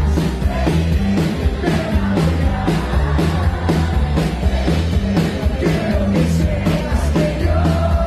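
Live rock band playing an upbeat song: a steady drum beat, a strong bass line and a voice singing.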